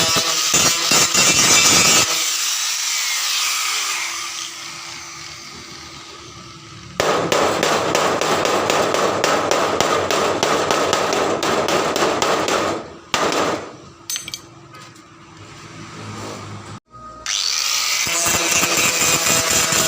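Izumi 130 MIG welder running gasless with flux-core wire on thin car body sheet: the arc crackles in bursts of a few seconds, with short pauses between welds.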